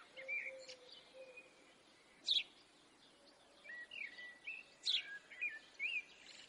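Quiet birdsong: scattered chirps and short whistles from birds, with the clearest sharp chirps about two seconds in and again about five seconds in.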